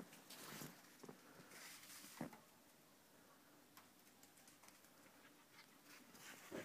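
Faint crunching of steps in fresh snow, a few soft crunches in the first two seconds or so, then only a light patter.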